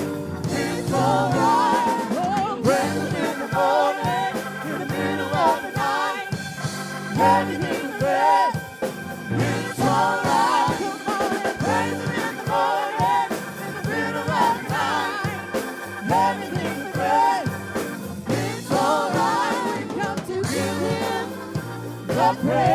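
Live gospel worship music: voices singing a wavering melody over a band with drums and a long held keyboard tone.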